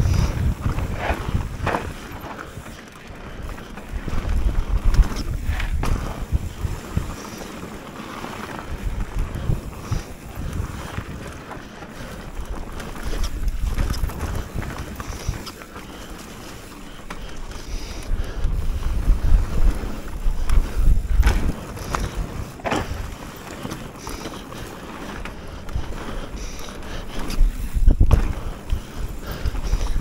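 Mountain bike descending a dirt singletrack: wind buffeting the microphone and tyres rumbling over the ground, swelling and easing every few seconds, with occasional sharp knocks and rattles as the bike hits bumps.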